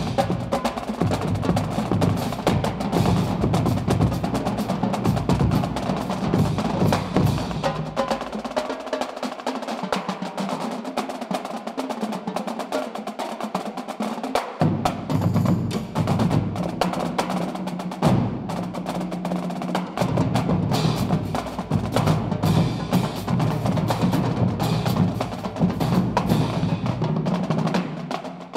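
Marching drumline playing a fast cadence: Yamaha marching snare drums, tenor drums and bass drums, with cymbals, in dense rapid stick strokes. About a third of the way in the bass drums drop out for about six seconds, leaving the snares and tenors, then come back in together.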